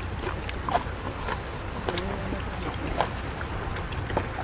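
Steady low wind rumble on the microphone, with scattered small clicks and rustles from hands eating rice and curry off banana leaves. A faint voice is heard briefly about two seconds in.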